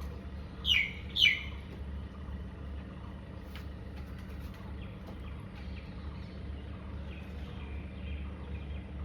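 A bird chirps twice, about half a second apart, each call short and falling in pitch, over a steady low hum.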